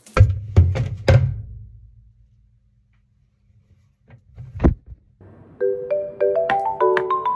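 A quick run of dull thumps in the first second, a single thump a few seconds later, then light background music with a marimba-like mallet melody starting about five seconds in.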